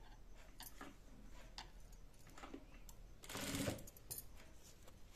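Sewing a folded fabric strip onto a blouse neck at an industrial sewing machine: soft handling of the cloth with light clicks, and a short louder burst of stitching a little past three seconds in.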